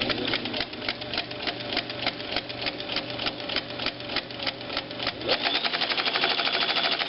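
White 77MG rotary straight-stitch sewing machine running: a steady electric motor hum under a rapid, even clatter of stitches, which speeds up and gets louder about five seconds in. It is noisy when running fast.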